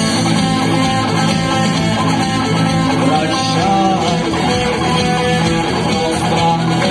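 Live rock band playing a guitar-led instrumental passage, with strummed and plucked guitars and no singing.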